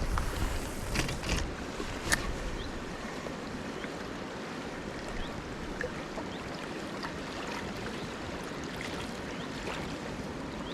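River water flowing steadily, an even rushing hiss, with a few brief knocks and a sharp click in the first two seconds.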